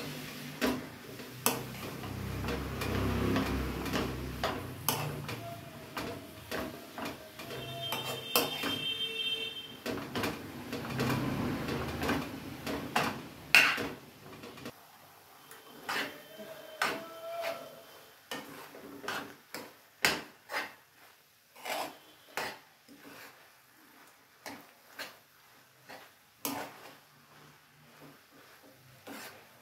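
Spoon scraping and knocking against an aluminium kadhai as grated carrots are stirred in ghee. There is a soft frying hiss under the strokes through the first half, then the strokes carry on as scattered clicks.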